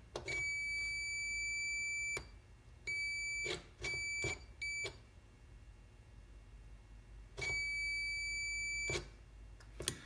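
Craftsman 82141 digital multimeter's continuity beeper sounding in five steady, high beeps of uneven length: a long one, three short ones, then another long one. The beeps come as the brake-pedal safety switch's plunger is pushed in and its contacts close.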